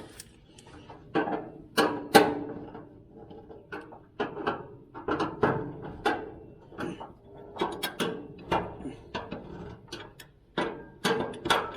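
Screwdriver tightening the assembly screws on a Weber Spirit gas grill's metal frame: irregular clicking and metallic knocks, some with a brief ring.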